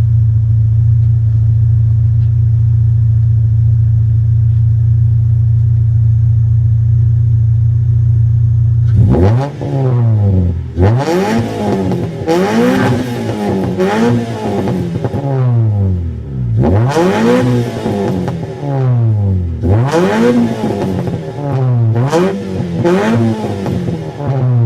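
Motorcycle engine and exhaust idling steadily for about nine seconds, then revved in a string of short throttle blips, about one a second, the pitch rising and falling with each.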